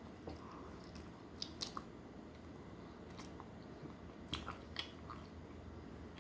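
Faint crunching of pretzels dipped in homemade cheese sauce being bitten and chewed, with a few crisp crunches about a second and a half in and again around four and a half seconds.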